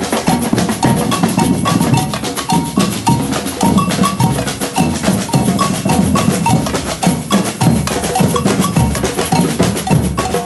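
A samba reggae batucada drum ensemble playing: deep surdo bass drums under snare and higher-pitched drums, with a bell-like part, in a dense, steady rhythm that never stops.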